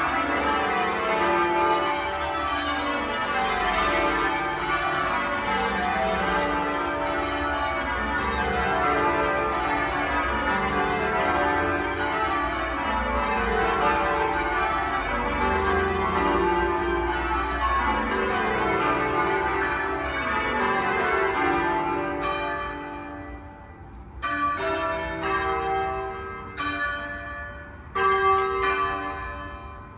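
Twelve church bells in change ringing, struck in quick rows that run down the scale from the highest bell to the lowest. About 22 seconds in, the steady ringing breaks off into a few scattered strikes and dies away.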